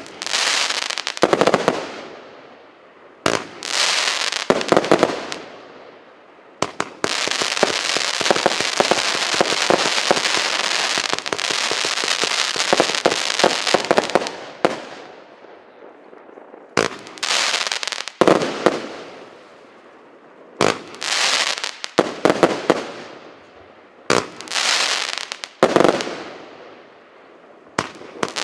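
Multi-shot firework cake (a 123-shot battery of 0.6 to 1.2 inch tubes) firing. Single shells go off every second or two, each bursting and fading out in a crackle. From about seven seconds in, a rapid barrage of shots and crackling runs for about seven seconds, then single shots resume.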